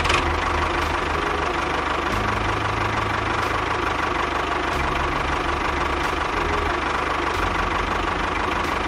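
Tractor engine running steadily with a low, knocking chug.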